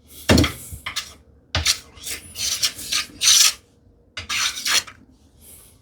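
No. 5 hand plane taking a few quick strokes along the edge of a wooden tambour slat, shaving a chamfer. Each stroke is a short scraping hiss that begins with a light knock as the plane meets the wood.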